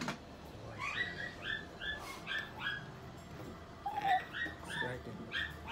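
A cat giving short, high-pitched mewing cries, about three a second in two runs, while being held down against its will.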